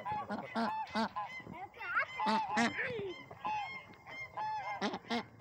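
Several white domestic ducks calling: a busy run of short, nasal, overlapping calls from more than one bird.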